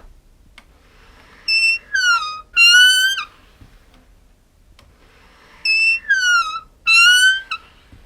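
Squeaky door hinge squealing as a door is swung, in two bouts of three high-pitched squeals each: one held, one falling in pitch, one rising slightly.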